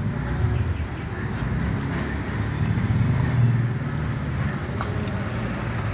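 Low, steady rumble of street traffic, with a motor vehicle engine running nearby.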